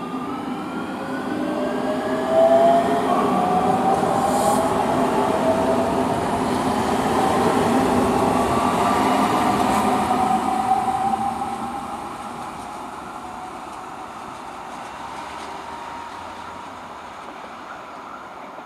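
Electric multiple unit ELT 205 pulling away from a stop, its traction motors whining in several tones that rise steadily in pitch as it accelerates, over the rumble of wheels on rail as it passes close by. About twelve seconds in the sound drops to a quieter, steady rumble of the train running farther off.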